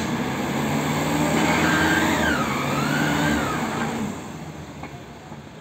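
Mobile crane's diesel engine revving up, loudest through the middle and easing back about four seconds in, with a higher whine that dips and rises in pitch over it.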